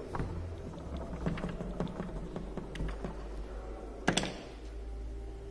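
Small clicks and taps of hands working a brushless motor's plastic cooling fan off its shaft, then one sharp knock about four seconds in as a part is put down on the wooden table. A low steady hum runs underneath.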